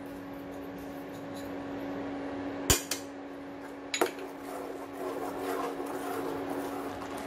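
Steel utensils clink twice against the rim of a stainless-steel pan, about three and four seconds in, as cardamom powder is tapped in. A ladle then stirs through the thick, curdled milk, over a steady hum.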